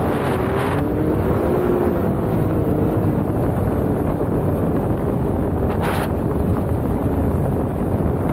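Wind buffeting the microphone over the running engine of a four-seat sport UTV driving on sand. The engine note wavers up and down in the first couple of seconds, and a short rush of noise comes about six seconds in.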